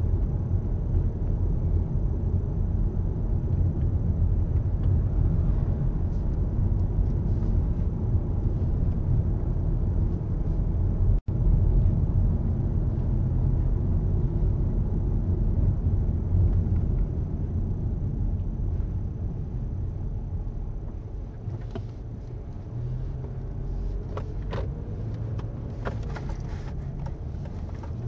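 Car driving along at a steady speed, heard from inside the cabin: a low, steady rumble of road and engine noise. The sound cuts out for an instant about eleven seconds in and eases slightly later on, with a few faint clicks near the end.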